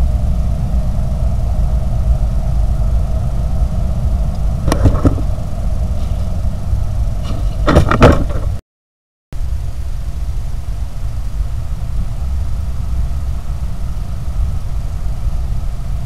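Steady low rumble and hiss of a night trail camera's microphone, with two short clusters of knocks about five and eight seconds in, the second the louder. The sound cuts out for a moment just after eight seconds, then the rumble resumes.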